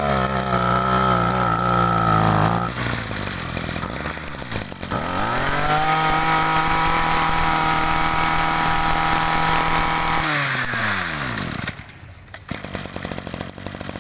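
Small two-stroke brush cutter engine running steadily, cutting back about three seconds in, then revving up to a steady high speed for about four seconds and winding down again about ten seconds in.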